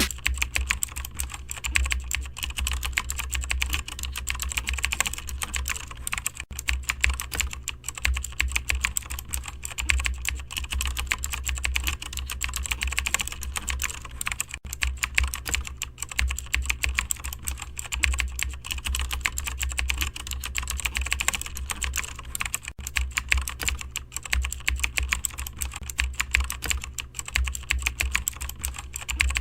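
Computer keyboard typing: fast, continuous keystrokes clicking unevenly, over a steady low hum.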